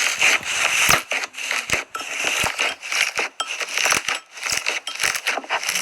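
Slime being squeezed and pressed by hand, with dense, irregular crackling and popping.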